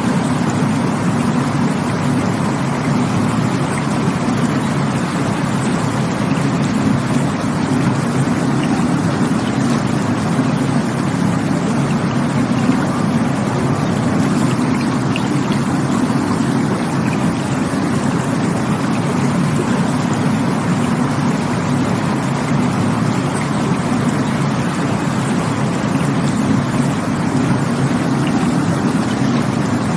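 Rushing water, a steady, even roar with no changes.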